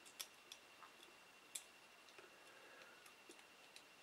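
Near silence broken by about seven faint, irregular clicks and taps, as small parts of a mini drone are handled. A faint steady high whine runs underneath.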